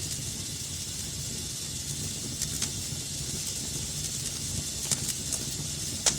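Wood fire crackling in a fireplace: a steady low rumble and hiss of burning, with scattered sharp pops and snaps, the loudest pop near the end.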